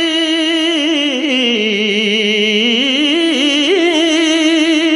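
Male voice singing an Urdu naat, holding one long wordless note with a strong vibrato; the pitch sinks lower in the middle and climbs back up near the end.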